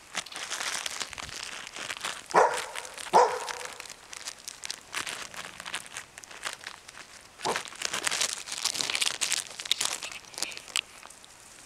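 Hunting dog barking three times: two short barks close together about two seconds in and another past seven seconds. Dry grass, leaves and brush rustle and crunch close by throughout.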